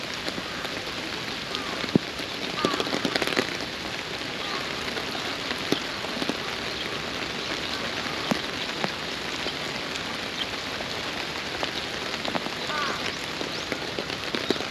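Steady rain falling, with scattered ticks of individual drops.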